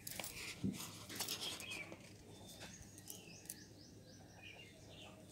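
Birds chirping in the background, a run of short high chirps, with scattered faint clicks and a low soft thump just under a second in.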